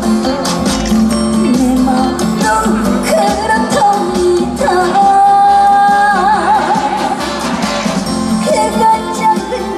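A woman singing a trot song live over amplified backing music, with one long held note in the middle that ends in vibrato.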